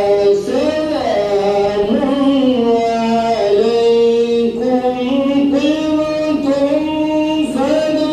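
A man's voice reciting the Quran in the melodic style of a qari, holding long drawn-out notes that glide up and down between steady pitches.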